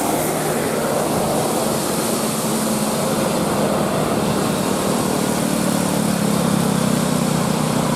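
Large tour bus engine running close by: a steady low drone with rushing noise, growing louder about halfway through.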